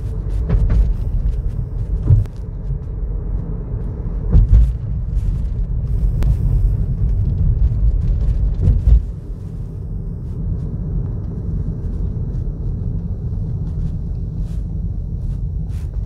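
Steady low rumble of a vehicle on the move in city traffic, swelling louder about two, four and a half and nine seconds in, with a few sharp clicks.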